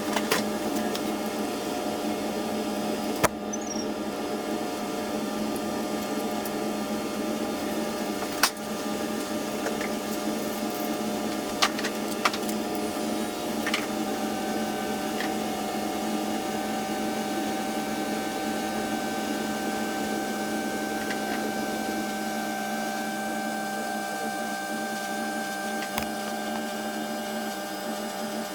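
A steady machine hum made of several held tones, with a higher tone joining about halfway through, and a few sharp clicks now and then, about six in all.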